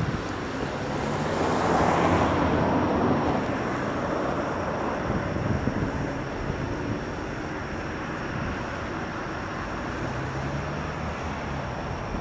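A distant engine rumble mixed with wind noise, swelling louder for a couple of seconds about two seconds in, then settling to a steady low hum.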